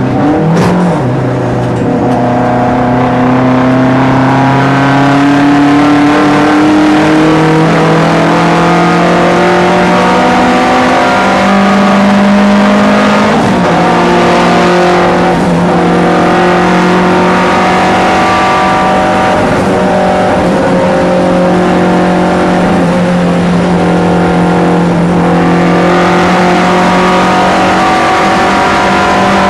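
SAAB 900 race car's turbocharged four-cylinder engine pulling hard, heard from inside the cabin. Its pitch climbs over several seconds, dips briefly about half a second in and again around thirteen seconds in, then holds high and steady.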